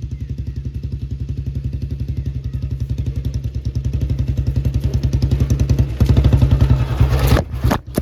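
Motorcycle engine running with an even, rapid exhaust pulse that grows louder. A brief clatter near the end is followed by a short drop in the engine sound.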